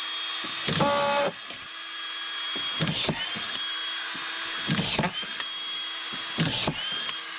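Makita autofeed drywall screwdriver running with a steady whine, with four louder bursts about two seconds apart as it is pressed in to drive collated screws. It is fitted with a PZ2 bit instead of the PH2 that the Phillips screws need, which is giving a lot of trouble.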